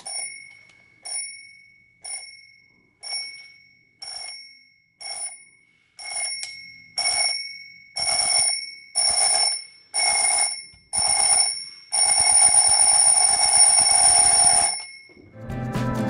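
Seiko QHK054 alarm clock's alarm sounding a bell tone: single rings about once a second that grow steadily louder, then one continuous ring for a few seconds that stops shortly before the end.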